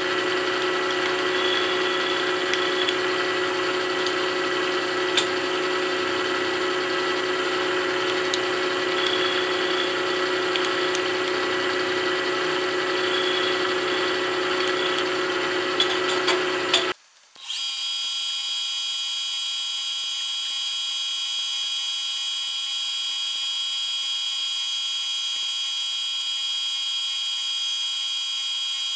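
Vertical milling machine running a quarter-inch end mill through a cut under the table power feed: a steady machine hum with faint intermittent cutting squeals. About two-thirds of the way through, the sound cuts out for a moment and gives way to a steady, high-pitched whine.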